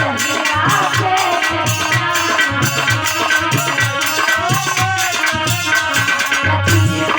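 Live bhajan band music with no singing: a steady beat on hand drums with a rattling shaker over a sustained melody.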